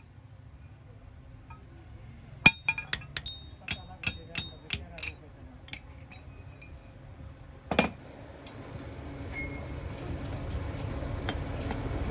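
Hammer striking steel on an anvil, each blow ringing: a quick run of about ten light strikes, then one heavier blow. A low rumbling noise builds steadily toward the end.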